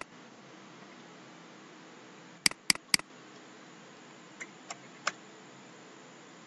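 Clicks from a computer mouse and keyboard: three sharp clicks in quick succession about two and a half seconds in, then three fainter clicks around four and a half to five seconds in, over a steady low hiss.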